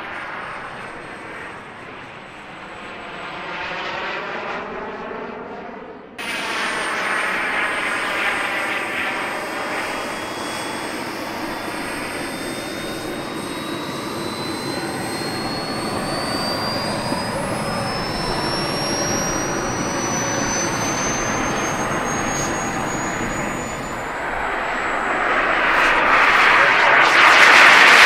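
Model jet turbine engines. A low pass of an RC jet comes first; after a sudden change a few seconds in, a turbine runs with a thin whine slowly rising in pitch, and near the end a jet takes off, growing loudest as it lifts off.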